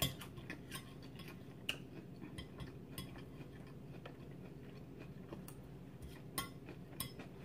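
Fork clicking and scraping against a plate while picking at salad: sparse, faint clicks every half second to second, a little louder at the start and about six and a half seconds in.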